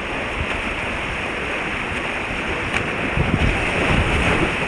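Rushing whitewater of a small river at high flood flow, a steady loud roar from the kayak's cockpit, with low buffeting of water and wind on the microphone growing stronger in the second half.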